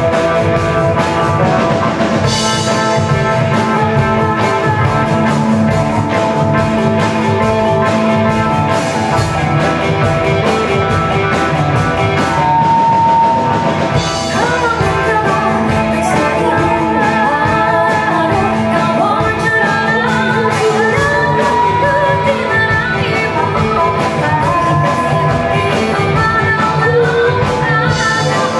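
Live fusion ensemble playing: electric guitars, bass, drum kit and keyboard together with Minangkabau traditional instruments, with singing.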